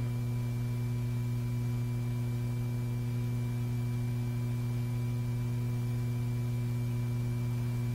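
Steady low electrical hum with a few faint higher steady tones over light hiss: the background hum of a vintage film soundtrack, with no other sound.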